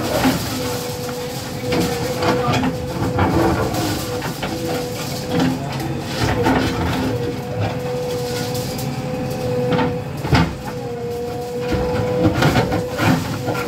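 JCB 3DX backhoe loader running under load as it works its bucket against brick walls, a steady engine and machine sound with a slightly wavering whine. Several sharp knocks of the bucket and breaking masonry come through it, one standing out about ten seconds in.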